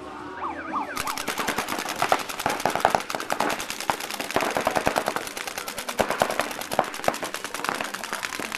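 Paintball markers firing long, rapid strings of shots, many a second. The firing starts about a second in and goes on almost without a break.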